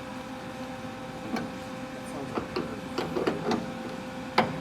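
Stud welder's transformer humming steadily, with several short sharp snaps as it welds pins to the car's sheet-metal quarter panel, the loudest near the end.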